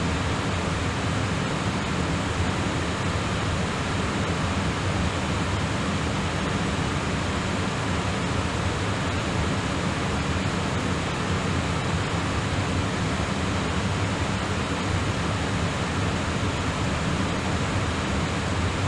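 Steady rush of air noise inside an airliner's cockpit in flight: an even hiss over a low rumble, unchanging throughout.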